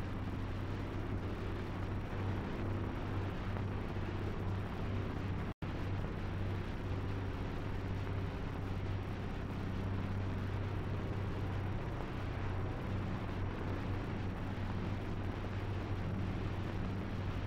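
Steady hiss and low hum of an old film soundtrack, with a brief dropout about five and a half seconds in.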